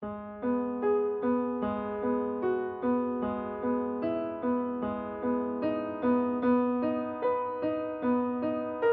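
Piano playing a gentle instrumental intro of repeated broken chords, a new note struck about every half second in an even rhythm, with no voice.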